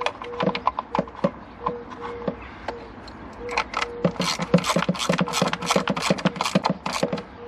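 Hand ratchet clicking as the screws of a crankcase vent valve on a BMW diesel's valve cover are tightened down. A few spaced clicks come first, then from about halfway a quick run of loud clicks at about five a second as the ratchet is swung back and forth.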